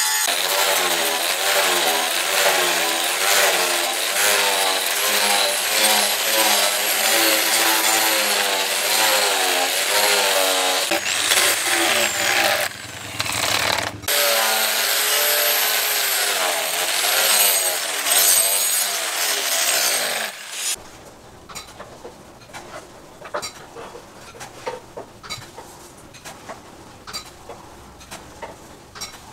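Electric angle grinder with an abrasive disc grinding a leaf-spring steel knife blade, the motor's pitch wavering as the disc is pressed against the steel. It pauses briefly about 13 seconds in, then stops for good after about 20 seconds, leaving a much quieter background with faint scattered clicks.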